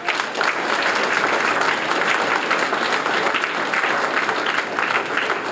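Audience applauding: a dense, steady clapping that eases a little near the end.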